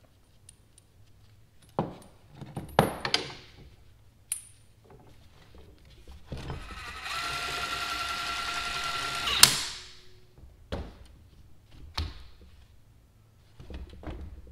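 A few sharp metal clanks as a threaded-rod spring compressor clamp is fitted to a coil spring. Then a small power tool whirs steadily for about two and a half seconds and stops with a loud sharp click.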